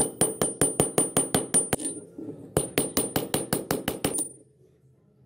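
Small steel hammer rapidly striking rusty needle-nose pliers laid on a steel gear, metal on metal with a high ring after each blow. About six blows a second in two runs, with a short pause a little after two seconds in, stopping about a second before the end.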